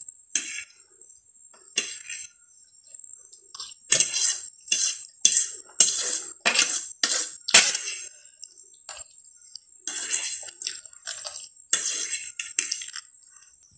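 Metal cutlery scraping and clinking against a ceramic plate while the last noodles are gathered up: a run of short, sharp strokes at irregular spacing, busiest from about four seconds in.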